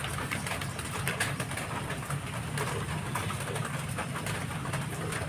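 Scattered short scrapes and clicks of a knife cutting a fish against a wooden board, over a steady low rumble.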